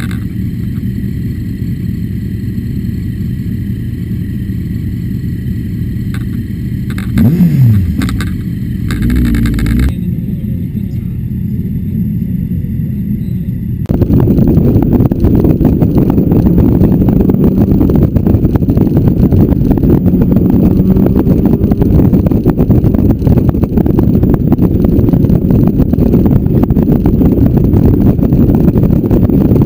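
Motorcycle engines idling, with a brief rev about seven seconds in and another about nine seconds in. Halfway through, the sound changes abruptly to a motorcycle underway at road speed: engine noise mixed with a steady rush of wind over the microphone, louder than the idling.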